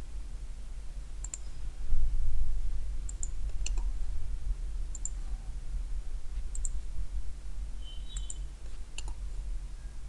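Computer mouse buttons clicking, about seven short clicks every second or so, some in quick pairs, over a low steady hum.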